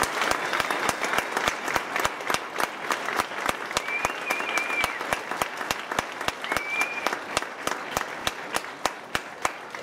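Audience applauding, with loud single claps from close to the microphone standing out against the steady clapping of the crowd. The applause slowly thins toward the end.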